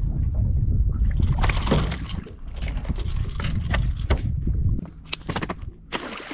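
Wind and boat noise on the microphone: a low rumble with scattered clicks and knocks, easing off about five seconds in.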